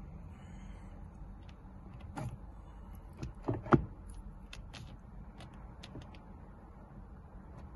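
Scattered light clicks and knocks, loudest just before the middle, as a steering wheel is handled and seated on a car's steering column, over a steady low hum.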